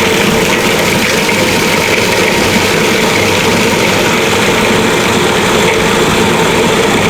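Blender running steadily at full speed, churning pitted medjool dates, water and almond butter into a thick, sticky paste.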